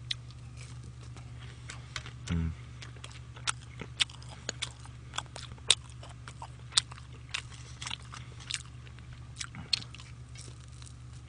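Close-up chewing of a pan-fried dumpling (gun-mandu), with sharp, irregular crisp crunches over a steady low hum.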